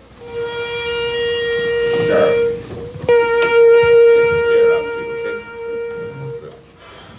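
A wind instrument holding one long note, broken off about three seconds in and attacked again at the same pitch for a second long note.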